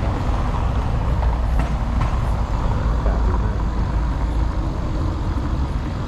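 Steady low rumble of city street noise: traffic heard from above the street.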